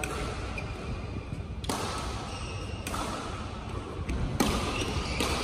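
Badminton rackets striking a shuttlecock in a rally: a few sharp, spaced-out knocks over the steady background of a large sports hall.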